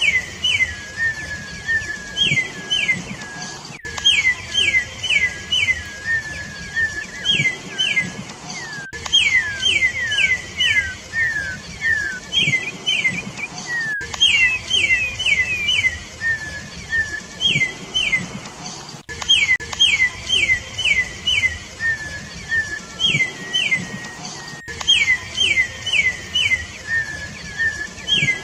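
Campo troupial (corrupião) singing: loud, clear whistled notes, each dropping in pitch, given in quick runs of three to five, with a new phrase every couple of seconds and lower sliding notes trailing after some of them.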